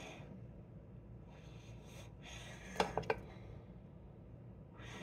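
Breathing close to the microphone, with three quick, sharp clicking taps close together just under three seconds in.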